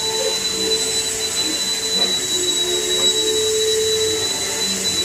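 Steady whirring machine noise, a constant hiss with a thin high-pitched whine running through it, unchanging throughout.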